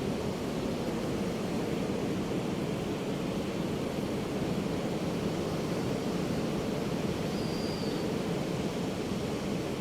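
Steady roar of ocean surf, moderately heavy waves breaking without a pause. A faint short high note sounds about seven and a half seconds in.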